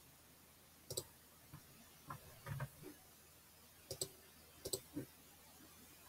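About six faint, scattered clicks from a computer mouse, with quiet room tone between them.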